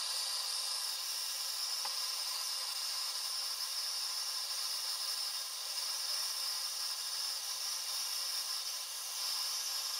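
Hand-held gas torch burning with a steady hiss, its flame heating a ladle to melt lead.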